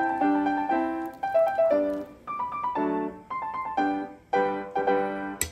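Background piano music: a gentle tune of single notes and chords, each struck note ringing and fading.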